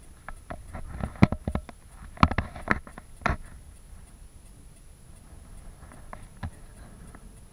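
Subway train running through a tunnel: a low rumble with irregular sharp clicks and knocks over the first few seconds, then quieter, with only a couple of faint clicks.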